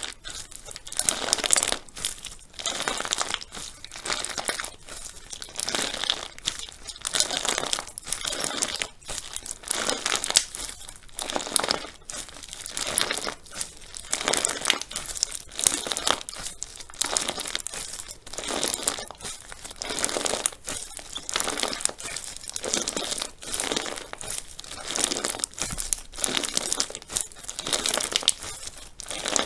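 Crunchy slime being squished and pulled, in repeated noisy bursts about once a second.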